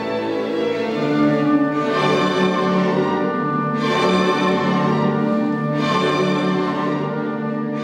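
Orchestral background music with bowed strings holding sustained chords, brightening briefly about every two seconds.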